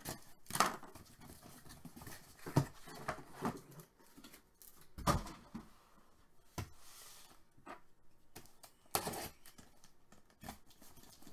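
Cardboard cases being opened: a small knife slitting the packing tape, and the cardboard and the stacked boxes of card packs handled and set down on the table in a handful of short scrapes and knocks.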